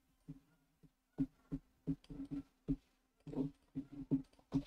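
Computer mouse and keyboard clicking: a dozen or so short, irregularly spaced clicks.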